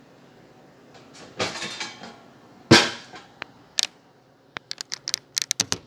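Kitchen handling sounds: a brief rustle, one sharp bang like a cupboard door shutting, then a quick run of light clicks and taps.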